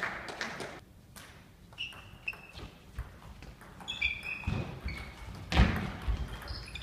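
Table tennis doubles rally: the ball clicking off the bats and table, with short shoe squeaks and thuds of players' feet on the sports-hall floor, the loudest thud a little past the middle.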